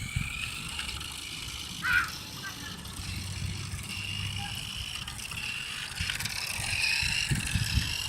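Small electric motor of a toy remote-control car whining, its pitch rising and falling as the throttle is worked, with one short louder burst about two seconds in.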